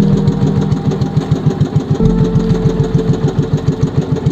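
Outrigger fishing boat's engine running with an even beat of about eight pulses a second.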